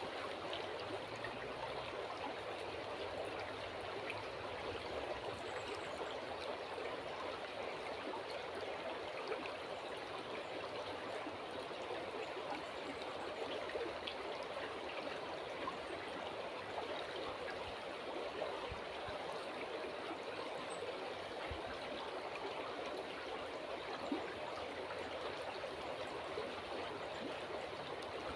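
River water flowing, a steady even rush and burble with a few faint brief ticks.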